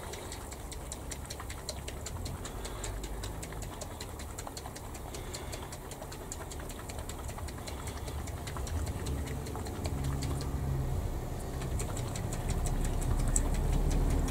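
Small electric motor running steadily, with a low hum and a fast, even ticking, growing louder in the last few seconds.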